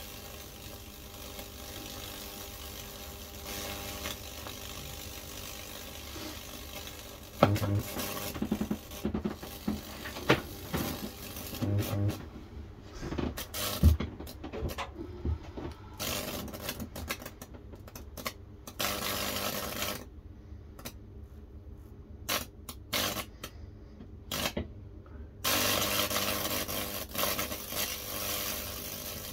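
High-voltage fractal (Lichtenberg) burner sizzling and crackling as the current arcs through wet cedar, over a faint steady electrical hum. The sizzle cuts out about twelve seconds in and again about twenty seconds in, returning each time after a few seconds, with a few sharp knocks from the probes.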